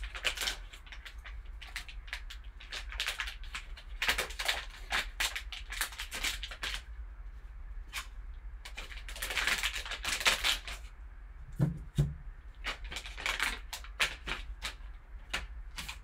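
Crinkling and rustling of a foil card pack handled and opened in gloved hands, with a longer rasping stretch about nine to eleven seconds in. There are clicks and taps of a hard plastic graded-card slab, and a couple of dull knocks about twelve seconds in.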